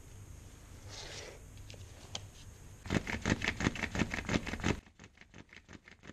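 Bow drill with a bamboo tube bit grinding into soapstone: a fast, even scraping rasp, several strokes a second, starting about three seconds in, loud for about two seconds and then fainter.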